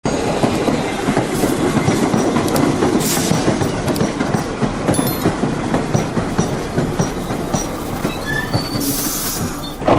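Subway train running on the rails: a steady loud rumble with rapid wheel clicks over the track joints and a few short, high wheel squeals near the end.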